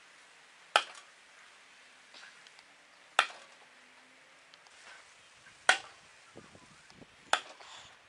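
Steel kunai throwing knives striking and sticking into a wooden stump: four sharp hits, the first three about two and a half seconds apart and the last one sooner.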